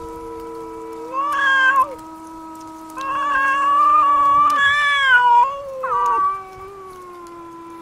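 Two cats, a calico and a tortoiseshell, yowling at each other in a fight standoff: long, low, wavering caterwauls that swell into louder, higher wails about a second in and again from about three seconds to nearly six.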